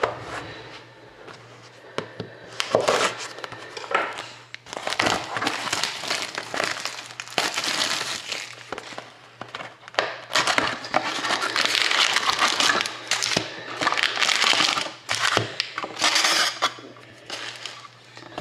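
Plastic shrink wrap crinkling as it is peeled off a sealed cardboard box of trading cards, then the box's cardboard tear strip ripped and the lid opened, in a long run of irregular crackling rustles. A faint steady low hum lies underneath.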